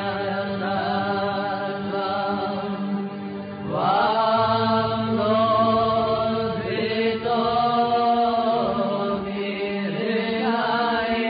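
A voice chanting a Sanskrit devotional hymn in long, melodic phrases over a steady drone, with a new phrase beginning about four seconds in.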